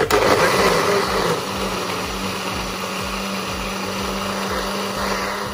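Countertop blender switched on and running steadily, puréeing canned corn with eggs, oil and sugar into cake batter. Its motor hum steps up a little in pitch after about a second.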